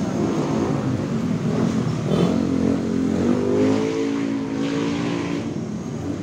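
A motor vehicle engine running, its pitch rising as it revs around two seconds in and dropping back about five and a half seconds in.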